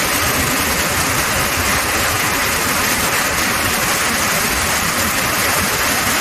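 Heavy summer downpour: a steady, dense hiss of rain with a low rumble beneath it.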